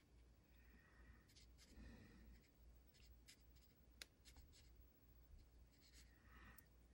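Near silence: faint soft scratching taps of a paintbrush dabbing weathering wash onto small plastic barrel castings, with one sharper tick about four seconds in.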